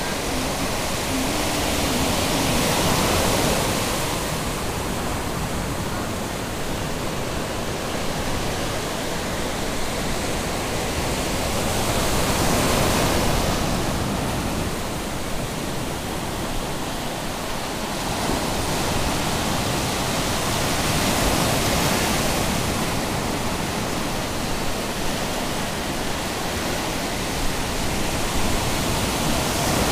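Atlantic surf breaking on a sandy beach: a steady wash of noise that swells each time a wave breaks, about every nine seconds.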